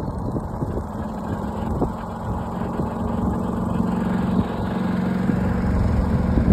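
A small engine running steadily, its hum growing louder before it cuts off near the end, over wind rumble on the microphone.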